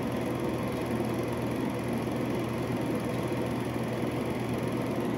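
Berkey Keystone Dual-8 Model 1550Z silent movie projector running Super 8 film, its motor, fan and film transport making a steady mechanical noise.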